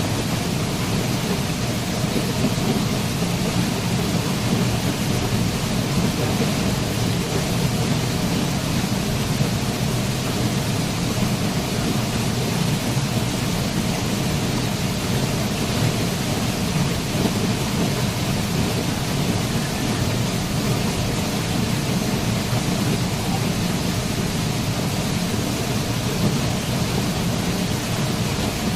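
Waterfall pouring steadily: a dense, even rush of falling water with a deep low rumble, unchanging throughout.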